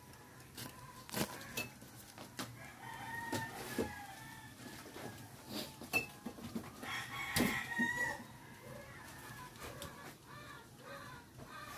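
Chickens clucking and a rooster crowing, a few drawn-out calls around the middle, with several sharp clicks or knocks among them.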